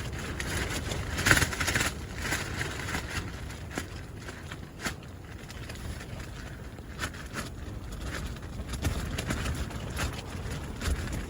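Wind buffeting the microphone in a steady low rumble, with scattered clicks and a brief rustle about a second in.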